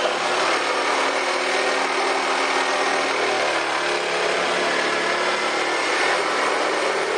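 Handheld power tool running and cutting through material, its motor pitch shifting up and down as it works under load.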